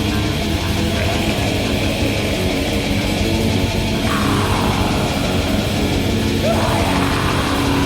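Raw black metal demo recording: distorted guitars playing loud and dense without a break, with two falling high glides, one about four seconds in and another past six seconds.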